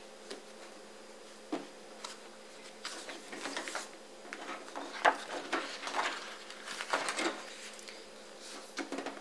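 Paper pages of a spiral-bound planner being turned by hand: repeated rustles and flaps of paper with small sharp clicks, busiest in the middle, and one louder click about five seconds in.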